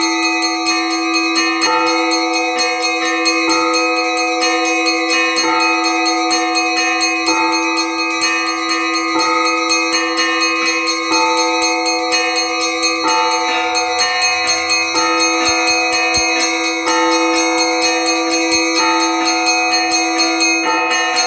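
Orthodox church bells being rung: a low bell's tone rings on underneath while smaller bells are struck in a dense pattern that repeats about every two seconds.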